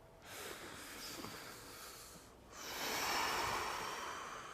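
A person breathing deeply: a long breath in, then a louder breath out starting about two and a half seconds in and fading away.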